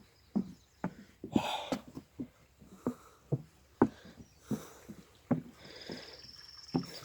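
Footsteps walking across a footbridge, about two steps a second. A short hissing rustle comes about a second and a half in, and a high wavering tone sounds for about a second and a half near the end.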